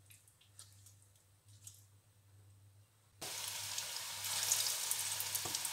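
Hot frying oil, at first nearly still with a few faint ticks. About three seconds in it breaks into a steady sizzle with crackling as gram-flour-battered onion and potato pakoras are dropped in to deep-fry.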